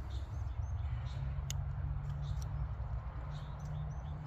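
A folding multitool being handled, with a few light sharp clicks as its tools are folded away and opened, over a steady low rumble.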